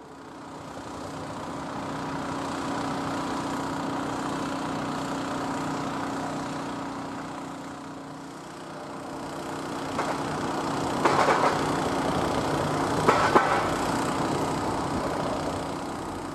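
Diesel engine idling with a steady hum, and two short, louder noisy bursts about two seconds apart in the second half.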